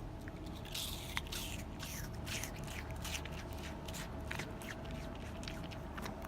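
Red panda biting and chewing apple: a quick run of crisp, wet crunches, over a steady low hum.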